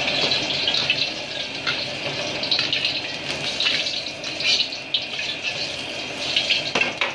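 Gas wok burner on a high flame hissing steadily under a wok of heating oil, with the oil crackling and a metal ladle scraping the wok as the oil is swirled. The hiss drops suddenly right at the end as the flame is turned down.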